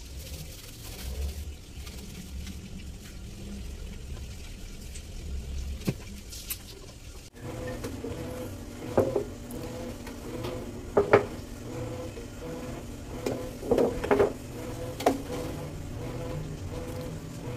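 Glass storage jars clinking and knocking on a shelf as they are picked up and set down, several sharp knocks in the second half over a faint steady hum.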